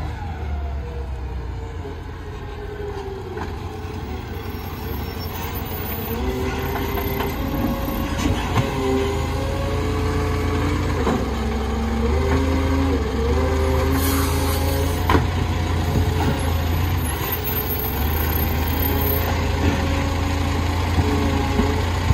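Side-loading garbage truck's diesel engine running as it pulls up, then speeding up and easing off in steps while the hydraulic arm grabs, lifts and tips a wheelie bin, with a pitched whine, scattered clunks and a short hiss about fourteen seconds in.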